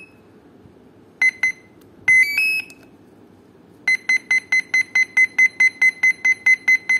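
The electronic speed controller of an RC model's electric motor beeps at power-up as a 6-cell LiPo battery is connected. There are two short beeps, then a rising three-note tune, then, from just before the last three seconds, a fast, steady beeping of one pitch about four times a second.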